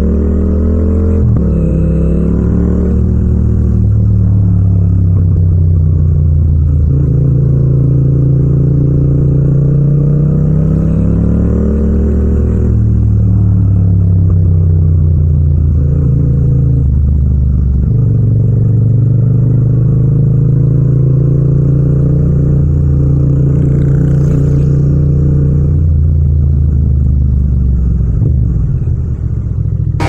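Yamaha MT-07's 689 cc parallel-twin engine and exhaust under way, heard raw from the rider's seat. Its pitch rises and falls with gear changes early on and again about halfway through, holds steady while cruising, then eases off near the end as the bike slows.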